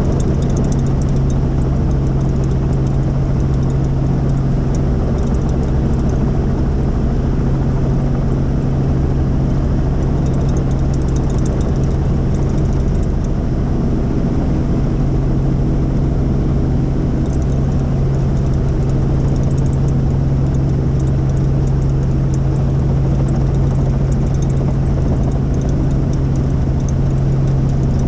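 Helicopter in flight: a steady, loud drone of rotor and engine with a strong low hum.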